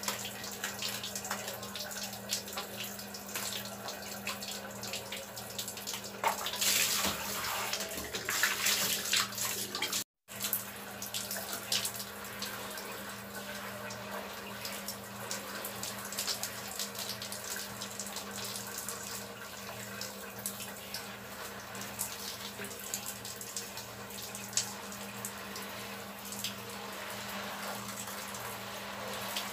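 Shower water running from a handheld hose and splashing, with a steady low hum underneath. The splashing is louder for a few seconds, then the sound cuts out briefly about ten seconds in.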